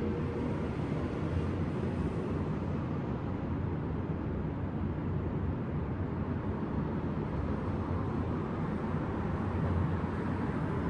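Steady low rumble of city traffic with no single vehicle standing out, an even hum of the street below.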